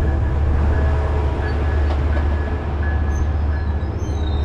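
Metrolink bilevel passenger train rolling past the station platform, with a steady low drone throughout and a few thin high squeals in the second half.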